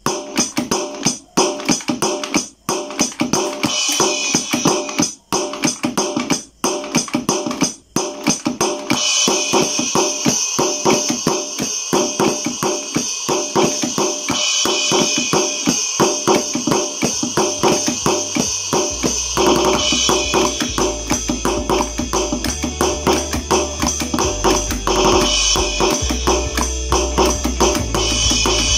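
Drum music with a busy, steady beat and tambourine-like jingles. A bass line comes in about eighteen seconds in.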